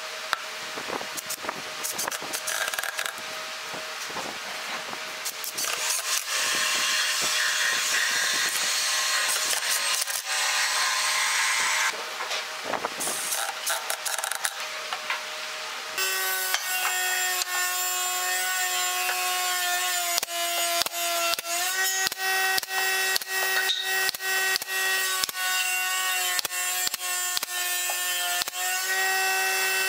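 A cordless driver runs in bursts, driving screws through brass hinges into pine. From about 16 seconds in, a pneumatic brad nailer fires many sharp shots into the pine box over a steady hum.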